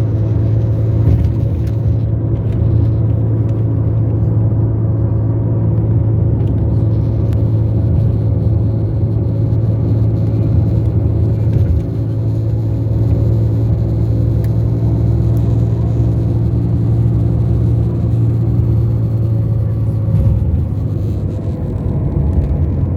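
A loud, steady low hum with a stack of even overtones, holding the same pitch throughout, with a slight drop in level about twelve seconds in.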